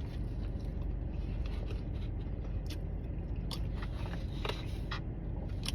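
A person chewing a mouthful of the chicken Big Mac sandwich, with scattered short crunches and mouth clicks, more of them in the second half, over a steady low hum.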